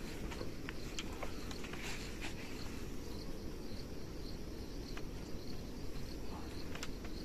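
A small insect chirping faintly in a steady rhythm of a few chirps a second, with scattered crackles and rustles of dry grass thatch being handled.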